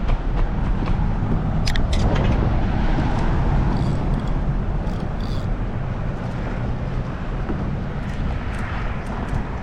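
Steady low rumble of wind and road traffic on a highway bridge, with a few brief clicks.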